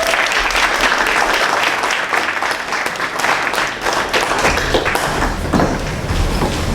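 Audience applauding, dying away about five seconds in, followed by a few scattered knocks and bumps.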